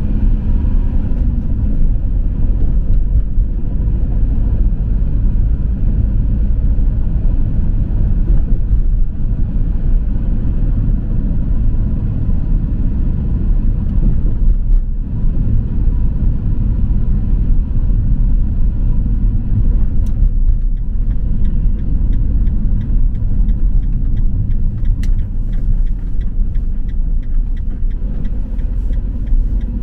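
Steady low rumble of a moving vehicle's engine and tyres on the road, as heard from inside the driving vehicle, easing briefly about halfway through.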